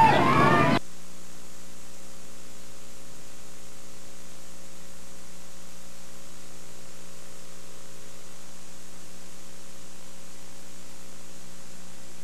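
Steady electrical mains hum, a constant buzz of many even tones, in place of the missing interview sound; a brief snatch of a voice is heard at the very start.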